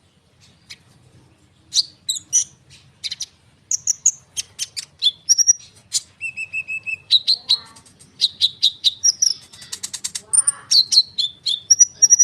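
Konin songbird in full song: a dense, rolling run of rapid high chirps, fast trills and short whistles. It is sparse for the first couple of seconds, then almost unbroken, with one held whistle about halfway through.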